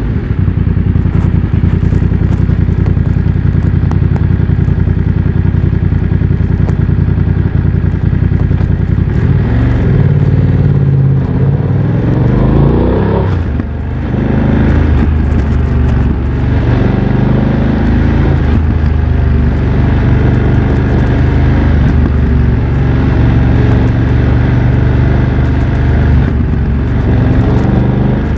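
BMW F900 XR parallel-twin engine running through an aftermarket MIVV X-M1 exhaust while riding. The engine holds a steady speed at first, then its pitch rises and falls repeatedly from about a third of the way in, with a brief dip in loudness near the middle, like a gear change.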